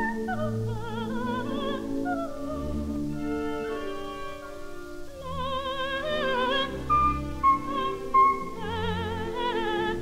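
Coloratura soprano singing florid, trilling runs with a quick vibrato over an orchestra, from a 1934 Victor 78 rpm record. There is a brief lull around the middle, then high trills and sustained high notes.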